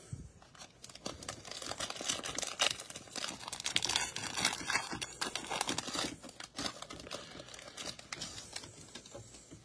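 Plastic wrapper of a Prizm basketball card pack being torn open and crinkled by hand, a dense run of irregular crackles and rips.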